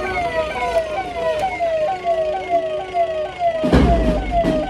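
Siren of a police escort vehicle repeating a short falling sweep about twice a second. A steady tone joins it for about a second midway. Loud rumbling bursts of noise break in near the end.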